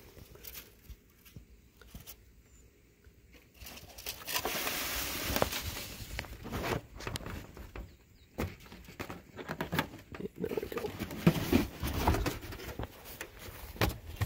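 Handling noise right at the microphone: rustling, scattered light clicks and taps as the balsa-and-tissue model airplane is handled and adjusted. The first few seconds are quiet, and the rustling starts about four seconds in.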